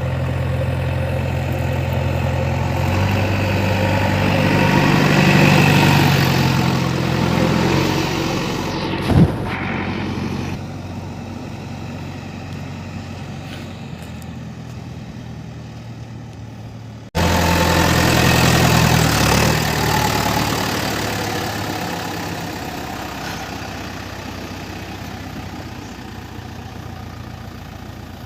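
JCB 3DX backhoe loader's diesel engine running and revving up and down as the machine works, with one sharp knock about nine seconds in. The sound cuts off abruptly past the middle and comes straight back with the engine revving again, then easing off.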